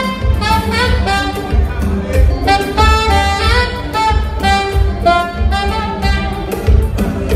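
Saxophone playing a worship melody of held and sliding notes, over an accompaniment with a pulsing bass line.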